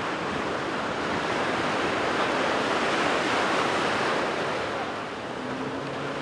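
Ocean surf breaking and washing, swelling loudest a few seconds in, with wind on the microphone. A faint steady engine hum comes in near the end.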